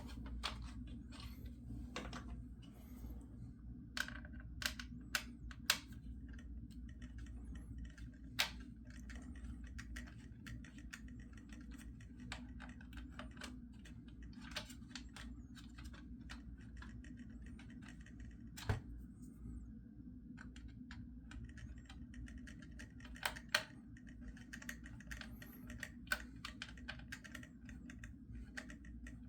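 Irregular light clicks and taps of a small plastic toy tank being handled and turned over, over a steady low hum.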